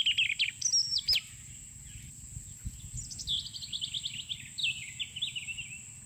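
Birds singing: a burst of quick high chirps at the start, then from about three seconds in a long run of rapid notes that fall in pitch.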